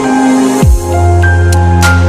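Electronic music: held synth notes, then a deep bass sweeps down about half a second in and holds underneath, with a couple of sharp cymbal-like hits after a second.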